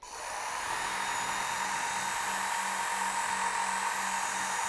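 Work Sharp Ken Onion Edition belt sharpener switching on and running at high speed, its abrasive belt grinding the steel edge of an axe. The grinding hiss over a steady motor whine starts suddenly at the beginning and settles to an even level within about half a second.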